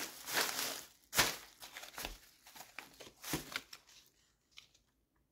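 Crinkling and rustling of packaging as serving tongs are picked up and handled, a string of short rustles over the first few seconds.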